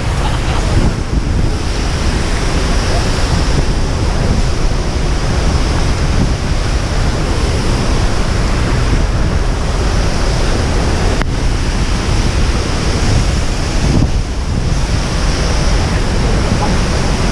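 Loud, steady rush of a waterfall heard up close, with spray and wind buffeting the microphone.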